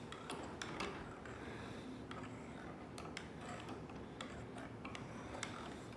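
Faint, irregular light clicks and ticks from a hand-moved analog joystick's plastic gimbal and potentiometers.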